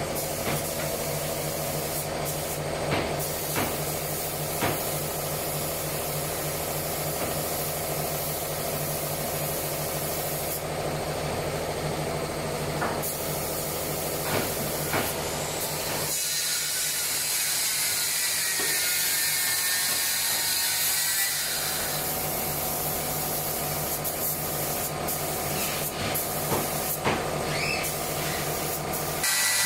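Woodworking workshop noise: a machine hums steadily, with scattered sharp knocks and clicks. For several seconds past the middle the hum drops away and a loud hiss takes over.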